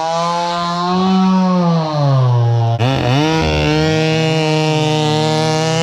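Muffler-modded Stihl chainsaw running, its engine speed swinging up and down as it revs and bogs. About three seconds in the sound changes abruptly to a steady high-pitched run as the chain cuts through an oak log.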